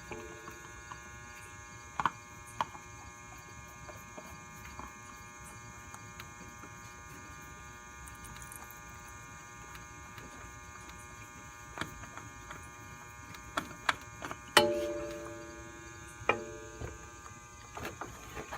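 Steady electrical hum with scattered sharp metallic clinks and knocks of hand tools working on the motorcycle's oil filter. The loudest clink, about three-quarters of the way through, rings on briefly.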